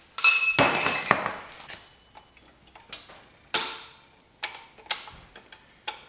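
Metal engine parts being handled, most likely connecting rod caps and bearing shells coming off the rods: a run of clinks with a brief metallic ring in the first second and a half, one sharp clank about three and a half seconds in, then a few lighter clicks.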